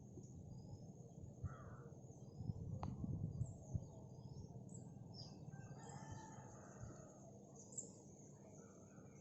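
A rooster crowing faintly, with small bird chirps above it. Low thumps about two and a half to four seconds in are the loudest sound.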